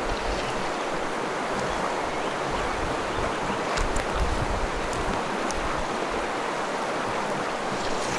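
Steady rushing of a fast-flowing stream's water.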